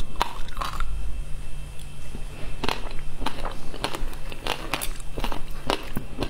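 Close-miked crunching of frozen passion fruit ice and seeds, with sharp irregular cracks and crackles: sparse for the first couple of seconds, then coming thick and fast.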